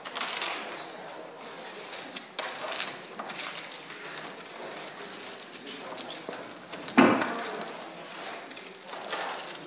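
Paper and painting materials handled on a table: scratchy rustling and scraping in short flurries, with one sharp knock about seven seconds in.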